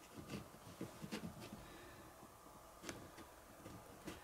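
Faint, scattered light clicks and taps of handling: a striped straw prodding tissue paper inside a plastic tarantula enclosure, with one slightly sharper tick near the end.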